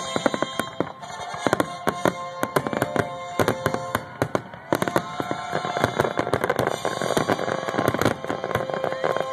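Fireworks finale barrage: aerial shells bursting in rapid, overlapping bangs, many a second without a break.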